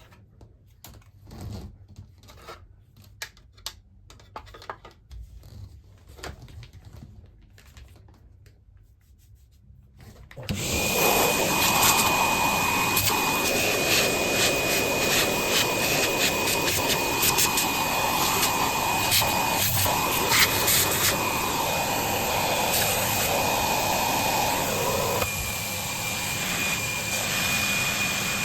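Quiet handling knocks and rubs, then about ten seconds in a vacuum cleaner switches on and runs steadily with a high whistle; its sound shifts a little near the end.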